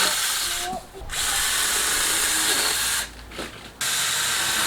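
Small battery-powered mini chainsaw (4-inch bar) running in bursts on a pole trimmer, its motor and chain cutting in and out as the pull-down trigger line is pulled and released: it stops briefly just under a second in and again for most of a second near the three-second mark.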